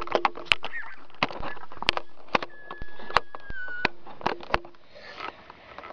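Handling noise: irregular sharp clicks and taps, several a second at times, as plastic toy pieces and the recording device are moved about.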